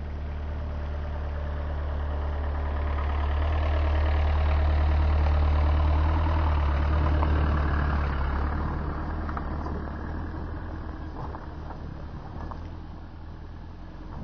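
A small van's engine running with a low hum, getting louder as it comes past close by, then fading as it drives away.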